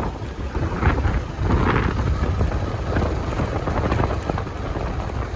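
Heavy wind buffeting the microphone of a moving scooter: a loud, steady rushing rumble, heaviest in the low end.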